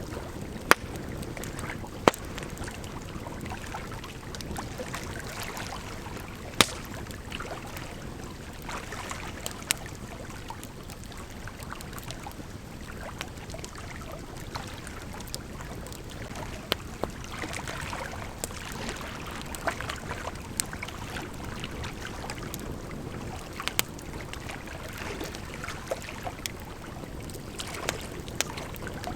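Campfire crackling, with sharp pops every few seconds, over the steady rush of a gently flowing river.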